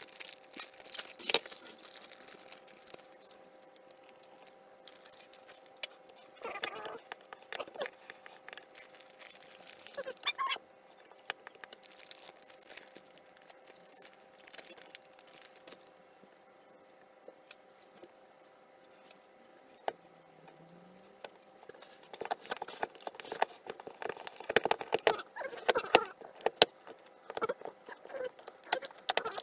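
Kitchen handling noises while cake batter is mixed: a paper packet crinkling, powder being poured into a glass mixing bowl, and a utensil clicking and scraping against the bowl, busiest over the last several seconds. A faint steady hum runs underneath.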